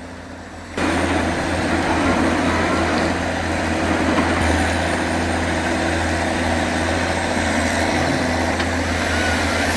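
Heavy logging machine's engine running steadily, with a constant low hum. The sound cuts in abruptly about a second in.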